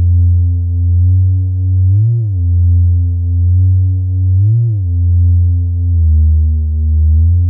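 Synthesized sub bass, made in FL Studio's 3x Osc from heavily filtered saw waves, holding low notes with a short glide up and back about every two and a half seconds, then stepping down to a lower note near the end. The glides come from the synth's portamento slide.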